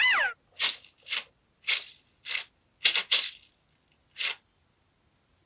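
A mesh stress ball filled with gel beads squeezed in the hand: seven short hissing squishes, unevenly spaced, with dead silence between. It opens with a brief squeak that rises and then falls in pitch.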